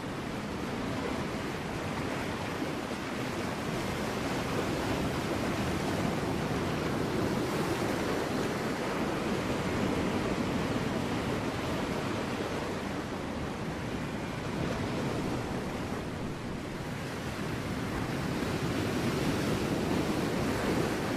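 Ocean waves washing against rocks: a continuous rush of surf that swells and eases slowly over several seconds.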